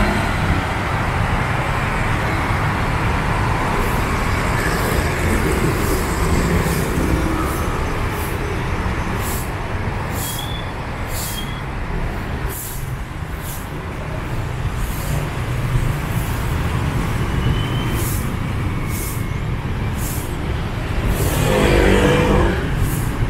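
Busy city street traffic: a steady rumble of passing cars and motorbikes, with one louder vehicle passing near the end.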